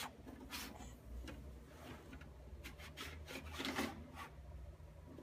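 Faint plastic rubbing and a few light taps as a child's hands slide and press the doors of a plastic toy garage.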